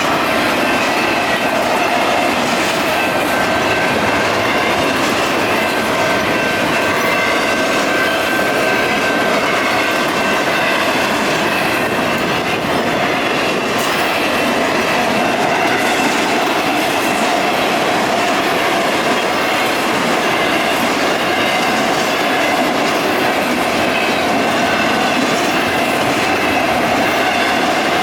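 Intermodal freight train rolling through a grade crossing, its steel wheels clicking over the rails with some squeal. Over it comes the steady ring of the crossing's electronic bell.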